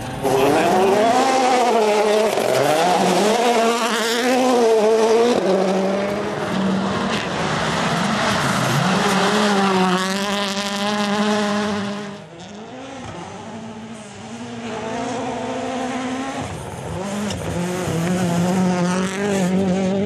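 World Rally Championship Rally1 cars' turbocharged four-cylinder engines at full throttle on gravel, the engine note rising and falling with each gear change. The sound jumps from car to car at several cuts and is quieter for a couple of seconds just past the middle.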